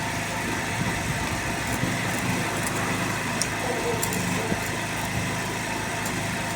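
Engine of a generator welder running steadily at idle, with a few faint ticks over it.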